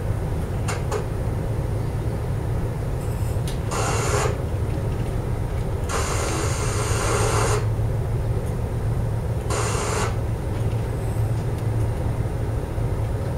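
Steady low rumble of a supply vessel's engines holding station beside an offshore platform. Three bursts of hiss come over it: a short one about four seconds in, a longer one of about a second and a half soon after, and a short one near ten seconds.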